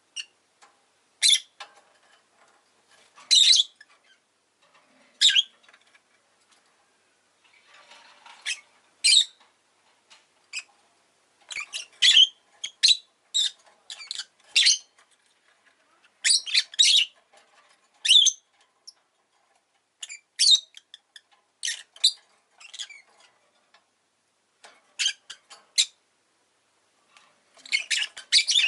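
Rosy-faced lovebird (Agapornis roseicollis) chirping: short, sharp, high-pitched calls at irregular intervals, some coming in quick runs of several, with the busiest stretches around the middle and near the end.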